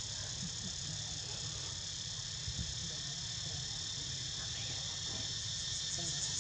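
Steady, high-pitched chorus of insects buzzing without a break, over a low steady rumble.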